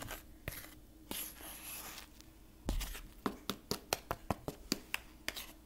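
Brittle, paper-like sheets of microwave-dried cornstarch crinkling and crackling as they are handled: soft rustles at first, a dull thump about halfway, then a quick run of sharp crackles, about four or five a second.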